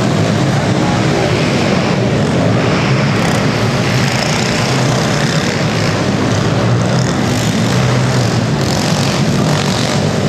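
Several small pit bike engines running together in a steady, continuous buzz as the bikes race over a dirt track, heard inside a large indoor hall.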